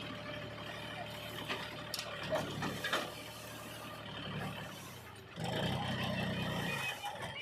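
Diesel engine of heavy earthmoving machinery running steadily, with a few sharp clanks in the first three seconds; about five and a half seconds in it gets louder.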